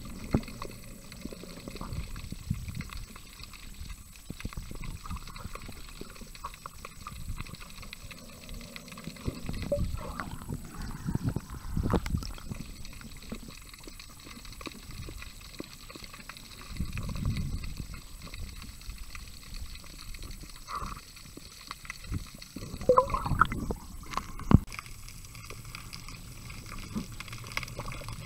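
Water as picked up by a camera held underwater: a muffled sloshing and bubbling rumble with scattered clicks and knocks, and a louder cluster of knocks toward the end.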